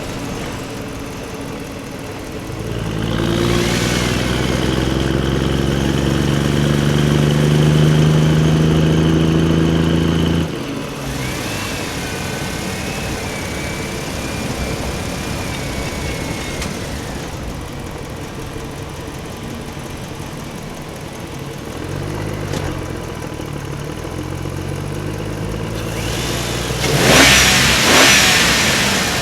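Engine-like running noise of RC toy construction vehicles. It rises about three seconds in, runs steadily and cuts off sharply about ten seconds in, then continues more quietly with a wavering high whine. A loud, brief noisy burst comes near the end.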